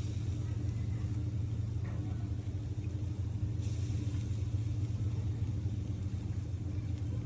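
A steady low hum with no change in pitch or level, over a faint high-pitched whine.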